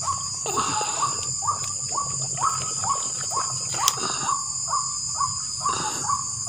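An animal calling in the night, a short note falling in pitch repeated very regularly about twice a second, over a steady high-pitched drone of crickets. A single sharp click sounds about four seconds in.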